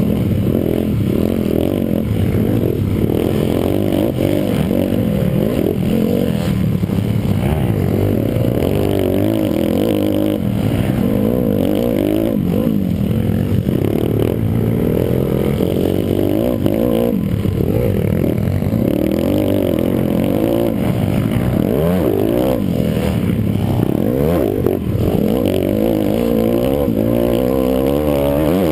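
Onboard sound of a pit bike racing on a dirt motocross track: its engine revs up and falls back over and over as the rider accelerates, shifts and brakes through the corners.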